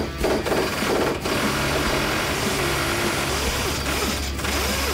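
Craftsman half-inch pneumatic impact gun hammering steadily on a rusted-on bolt that a cordless impact could not shift.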